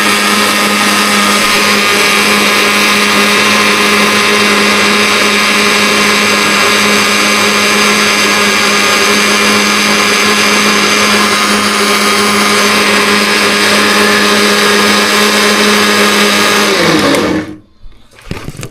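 Electric countertop blender running steadily at full speed, blending ginger and water into juice. About 17 seconds in it is switched off and the motor winds down with a falling pitch and stops.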